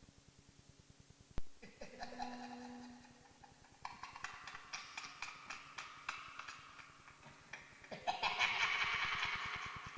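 Spooky laughter sound effect: a voice laughing in rapid pulses, loudest near the end, after a sharp click about a second and a half in. A faint, fast ticking runs underneath.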